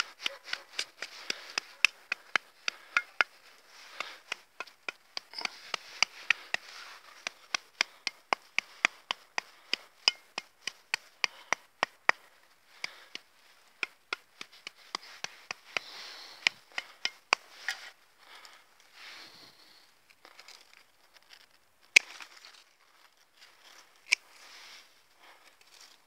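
Pruning shears snipping rose stems in quick succession, about three sharp snips a second, thinning to a few scattered snips after about 18 seconds, with one louder snip near the end.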